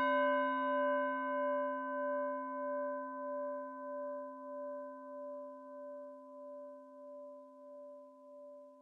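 A singing bowl, struck just before, ringing out and slowly fading. It holds a low hum with several higher tones above it and wavers in loudness about one and a half times a second.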